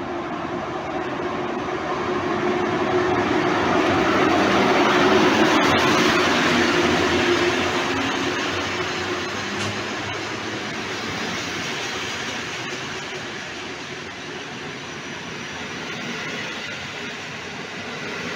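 PKP Intercity EP07 electric locomotive passing at a station platform with a steady hum, loudest about five seconds in. Its passenger coaches then roll past on the rails, a little quieter.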